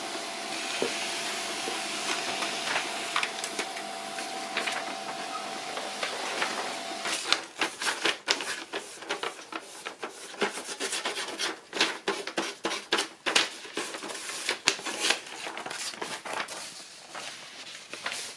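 HP LaserJet P1102w laser printer running a print job with a steady whine, its fuser freshly fitted with a new sleeve, pressure roller and heating element. About seven seconds in this gives way to irregular crackling and rustling as the printed paper sheets are handled.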